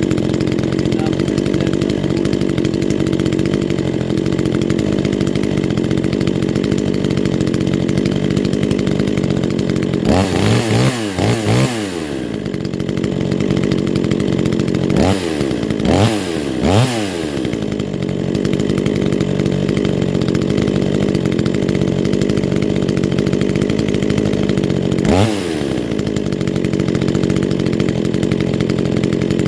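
Ported Neotec NH841 two-stroke chainsaw idling, revved up sharply and let drop back to idle four times: once about a third of the way in, twice close together near the middle, and once near the end. It is running on its first start after porting, not yet tuned.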